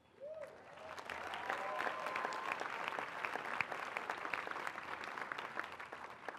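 Large crowd applauding, starting suddenly and tailing off near the end, with a few cheers in the first two seconds.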